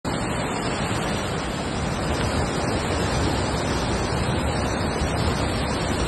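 Steady rushing of a flooded mountain stream: fast muddy water in a normally dry gully bed, swollen by heavy rain.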